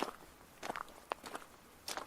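Footsteps crunching on gravel at a walking pace, several crisp steps in quick succession.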